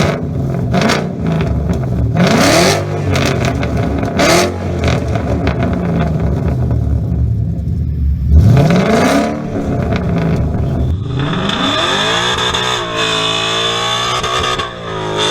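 Ford 5.0 Coyote V8 in a Mustang, with mufflers removed and the stock resonators kept, revving in several quick blips, one of them about 8 seconds in. From about 11 seconds on it runs continuously with the pitch rising and falling, as under driving.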